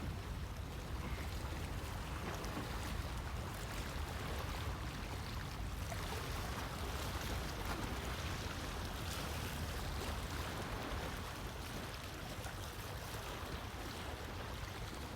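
Sea waves washing onto a beach: a steady wash of surf with a deep low rumble underneath.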